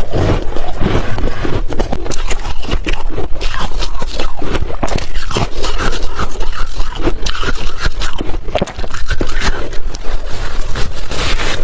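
Close-up crunching of hard refrozen ice being chewed: a dense, steady run of crackles and crunches, with one brief pause about three-quarters of the way through.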